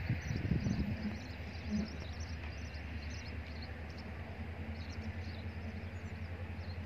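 Low, steady, pulsing rumble of a distant diesel locomotive engine, not yet in sight, with a few short louder low sounds in the first two seconds. Small birds chirp over it.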